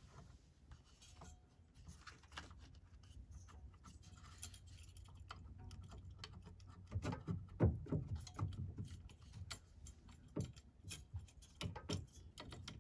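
Faint small metal clicks, taps and rattles of fingers working the throttle rod and its return spring loose from a generator carburetor's linkage. Sparse at first, busier from about seven seconds in.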